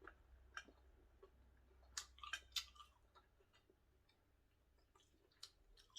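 Faint chewing and mouth clicks from a person eating. A few sharper clicks come about two seconds in and again near the end.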